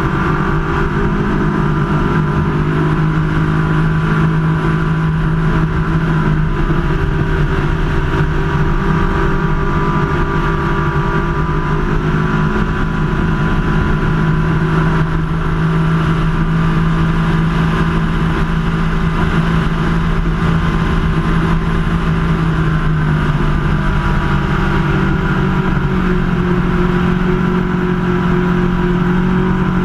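Superclass ski race boat's engine running hard at racing speed, a loud steady drone that shifts slightly in pitch a couple of times, over the rush of wind and water in the open cockpit.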